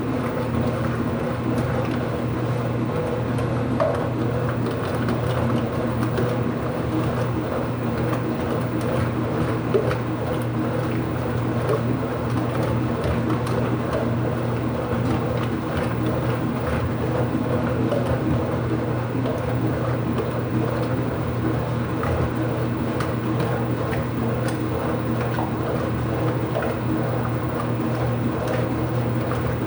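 IPSO washing machine running with a steady mechanical hum, its wash cycle under way, with a couple of faint clicks.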